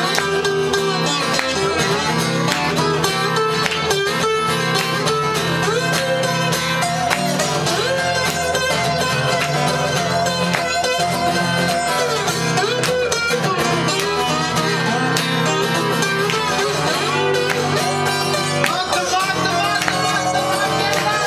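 Two acoustic guitars playing together in an instrumental passage, chords strummed with a moving melody line picked over them.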